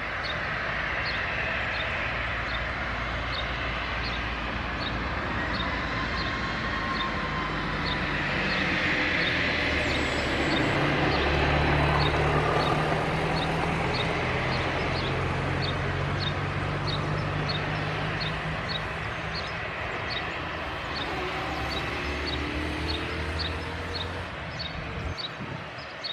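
Airbus A320's twin jet engines at low taxi power, a steady whine and rush that swells as the airliner rolls past about midway through, then eases off. A faint high chirp repeats about one and a half times a second throughout.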